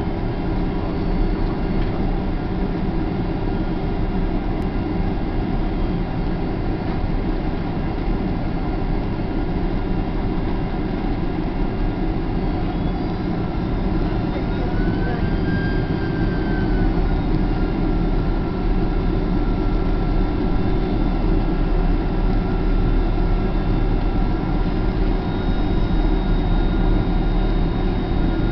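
Steady jet-airliner cabin noise from inside a Boeing 767-300ER on approach: the engines and airflow make a constant deep rumble with several held tones over it. About halfway through, a whine rises briefly and settles back, and the overall level steps up slightly soon after.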